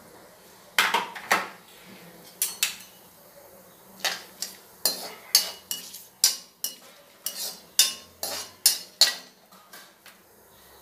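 A metal spoon and a perforated skimmer scrape and knock against the inside of an aluminium kadai, stirring whole spices tempering in a little ghee and oil. It is a string of sharp, irregular clinks and scrapes, coming most thickly in the second half.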